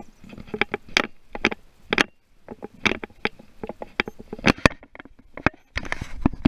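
Handling noise on a body-worn action camera: irregular sharp clicks and knocks as a hand touches and rubs the camera, with a denser stretch of rubbing near the end.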